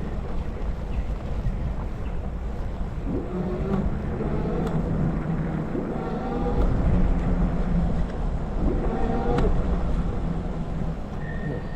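Wind buffeting the microphone while riding an e-bike, a steady low rumble. A pitched hum of several tones joins it about three seconds in, rises and falls, and fades out near the end.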